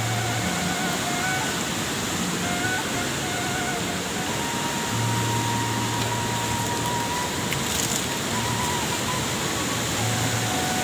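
Steady rush of a waterfall and its stream, an even roar of falling water. Faint held notes sit beneath it.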